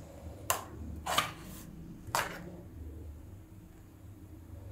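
A metal spoon scraping on a plate three times in the first two seconds or so, serving raita beside biryani.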